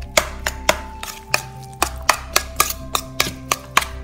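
Chopsticks stirring wonton filling of minced meat and chopped celery in a stainless steel bowl, clicking against the metal about four times a second, over background music.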